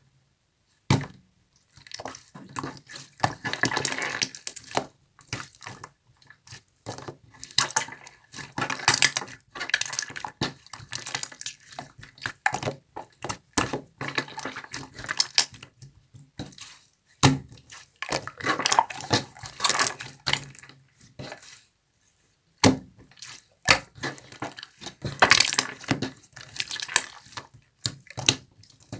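Translucent jelly slime being squished and worked by hand, giving irregular runs of sticky, wet clicks and pops, with a short pause about three quarters of the way through.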